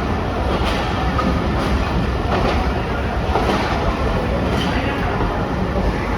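Passenger train running along the track: a steady rumble of the moving coach with occasional faint knocks from the wheels.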